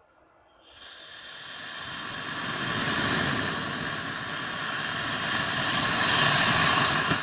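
Homemade solid-fuel rocket motor in a cardboard fireworks tube burning: a loud, rushing hiss that starts about a second in, builds, and holds for about six seconds before it begins to die away at the end.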